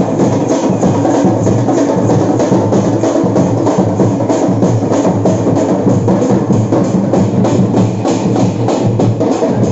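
Festival street drums beaten with sticks in a fast, steady rhythm of about four strokes a second, loud and continuous.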